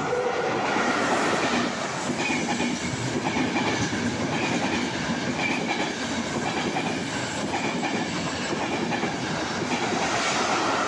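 Intercity passenger train running through the station at speed close to the platform: a steady loud rumble and rush, with the wheels clattering over the rail joints and a faint high ring coming and going.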